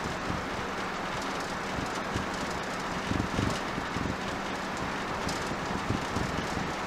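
Camping car driving at road speed, heard from inside the cab: steady engine and tyre rumble with wind hiss, and a few low bumps from the road surface.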